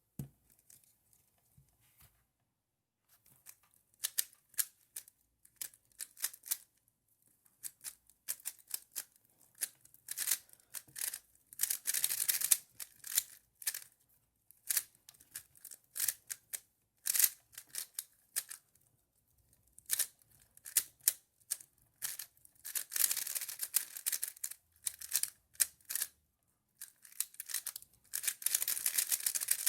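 Qiyi Thunderclap V3 M magnetic 3x3 speed cube being turned fast during a solve: rapid runs of plastic clicking and clacking, with short pauses between runs.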